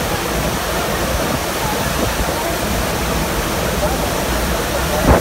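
Steady rush of the FlowRider surf simulator's pumped sheet of water pouring up and over the ride surface, with a short thump near the end.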